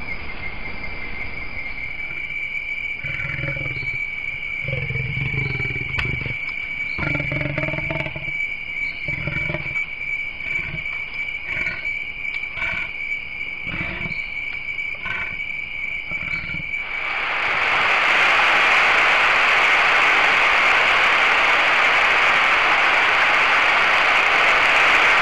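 Leopard making a run of throaty, rasping strokes, about a dozen of them roughly a second apart, over a steady high insect tone. About two-thirds of the way in they stop and a loud, even hiss takes over.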